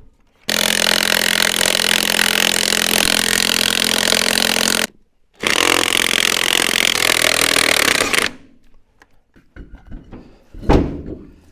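Cordless DeWalt FlexVolt impact wrench hammering rusty lug nuts loose on a Bobcat S250 skid steer wheel, in two long runs with a brief pause between. Near the end there are a few light knocks and one heavy thump.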